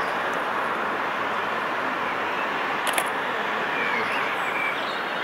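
Steam locomotive 60163 Tornado, a three-cylinder Peppercorn A1 Pacific, working hard in the distance: a steady, even rumble of exhaust with no distinct beats. A sharp click comes about three seconds in.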